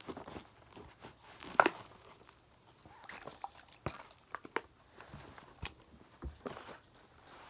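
Sticky slime being kneaded and pulled in the hands: scattered wet squelches and small popping clicks, the loudest about one and a half seconds in.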